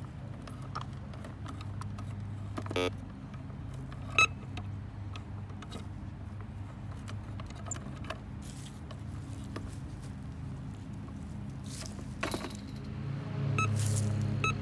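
Metal detector's low humming tone as the search coil is swept over a dug hole, checking it for more targets, with a few sharp clicks from handling, the loudest about four seconds in. Near the end the tone grows louder.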